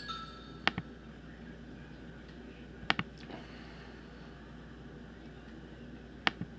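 Three sharp computer mouse clicks, each heard as a quick double tick of the button: about a second in, about three seconds in, and near the end.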